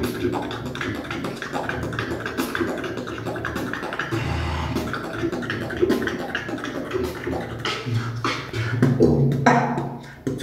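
Vocal beatboxing freestyle: fast mouth clicks, hisses and snare-like hits over a low humming bass line, with louder, sharper hits over the last couple of seconds.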